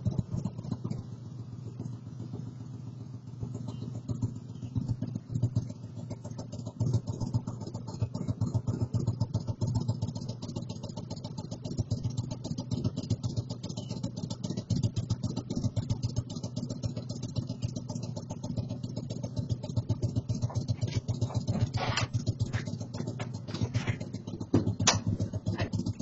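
Motorcycle engine idling with a fast, even pulse. A few sharp clacks sound near the end.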